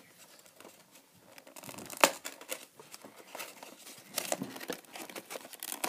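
Hands handling packaging to free a foam RC plane from its cardboard box: scratchy rustling and crinkling, with one sharp click about two seconds in.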